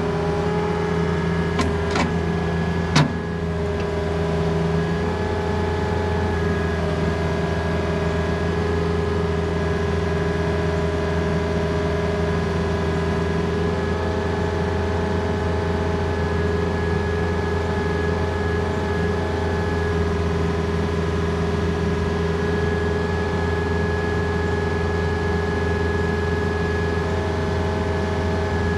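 Mini excavator's diesel engine running at a steady speed, with three sharp clanks in the first three seconds and a faint higher whine that comes and goes as the bucket and thumb are worked.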